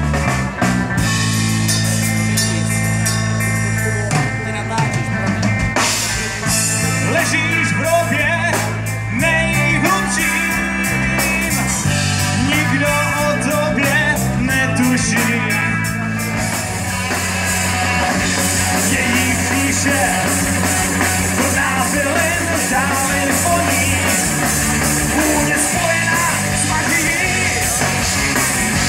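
Live rock band playing through a PA: two electric guitars, bass guitar and drum kit. About sixteen seconds in, the playing changes to a denser, heavier section with more cymbal.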